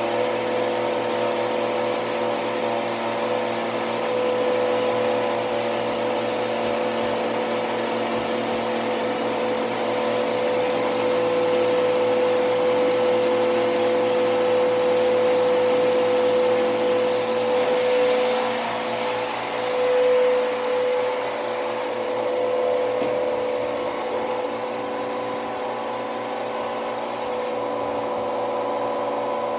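Hoover vacuum cleaner running continuously: a steady motor whine over a rushing airflow hiss. The tone wavers and shifts a little about two-thirds of the way through, then settles again.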